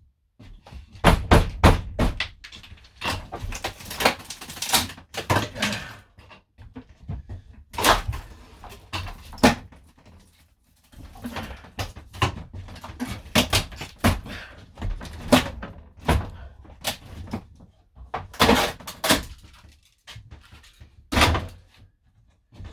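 Irregular knocks, thuds and clattering inside a van's cabin as old wiring and interior fittings are pulled out and handled, with short pauses between bursts of work.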